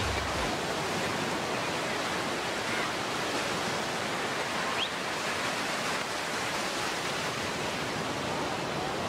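Ocean surf breaking and washing up onto a sandy beach: a steady, even rush of water.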